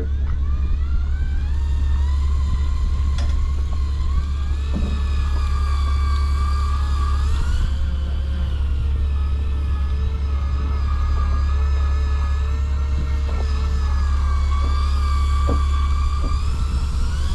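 Electric deep-drop fishing reel winding line in: a motor whine that rises in pitch as it starts, then holds and wavers slowly with the load. Under it runs the steady low drone of the boat's engine, with a few faint clicks.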